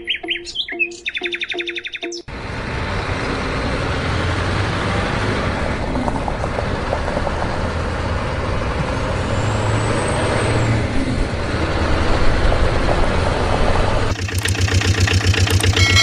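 A short run of high chirping pulses, then a steady truck engine sound running, which changes about fourteen seconds in to an even, rhythmic diesel idle.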